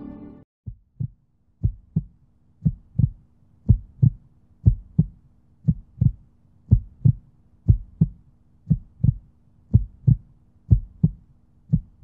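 Heartbeat sound effect: a low double thump repeating about once a second over a faint steady hum, starting just after a music sting cuts off.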